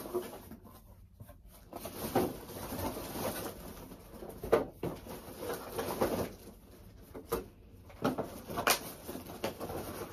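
Plastic packaging bags and cardboard rustling and crinkling as they are handled, with scattered sharp crackles and taps, while bagged toy pieces are pulled from a box.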